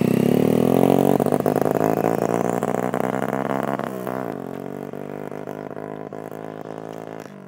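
A 50cc motorcycle with an aftermarket silencer accelerates hard from a standing start, its engine note climbing and then holding. About four seconds in the note drops and climbs again. The sound fades steadily as the bike moves away.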